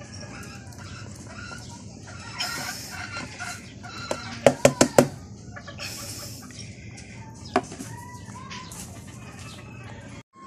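Chickens clucking and a rooster crowing in the background, with a quick run of four sharp knocks about four and a half seconds in.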